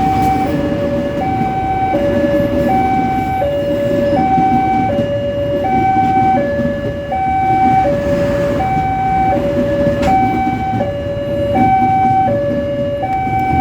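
Railway level-crossing warning alarm sounding a steady hi-lo two-tone signal, the high and low tones alternating about once a second with unchanging pitch, over a continuous low rumble.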